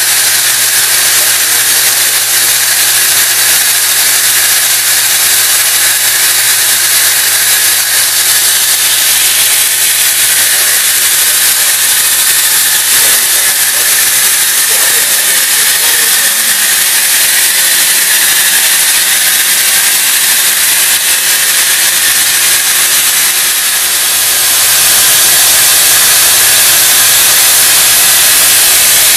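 Mori Seiki NT3200 multi-tasking CNC turning-milling center running, a loud steady hiss over a low hum. The hum fades out for a while in the middle and the sound grows a little louder near the end.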